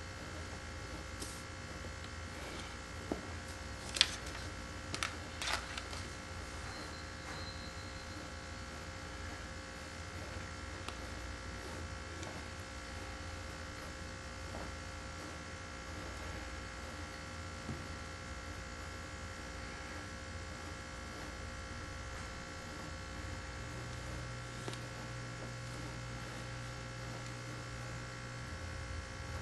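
Steady electrical hum and buzz. A handful of sharp taps and clicks come between about three and six seconds in, the loudest near four seconds, from a tailor's metal L-square and ruler being set down and handled on the cutting table.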